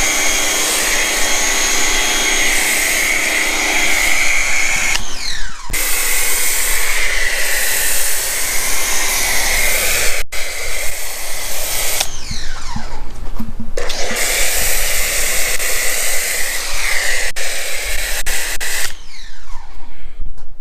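Ryobi 1600 PSI electric pressure washer running, with a foam cannon fitted with a 1.1 mm orifice hissing as it sprays snow foam: a steady motor whine under the spray hiss. It cuts out briefly about a quarter of the way in, again past the middle, and near the end.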